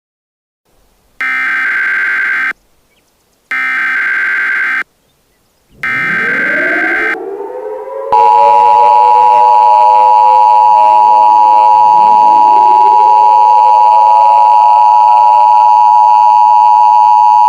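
Emergency Alert System tones: three short bursts of the SAME digital header data, then the steady two-tone EAS attention signal (853 and 960 Hz) from about eight seconds in. Several sirens wind up in rising glides beneath it, starting near the end of the third burst.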